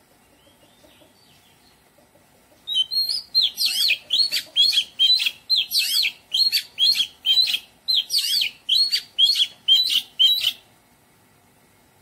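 Oriental magpie-robin singing a fast run of the same loud, sharp note over and over, about two to three a second. The run starts about three seconds in and stops suddenly after about eight seconds.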